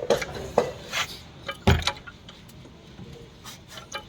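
Metal parts and tools clinking and knocking as a car's steering rack and front chassis assembly are worked into place: several sharp clinks, with one heavier, deeper knock near the middle, then fainter ticks.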